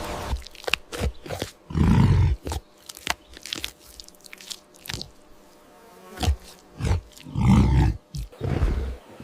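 An animal chewing with sharp crunches, broken by several short low growls or grunts.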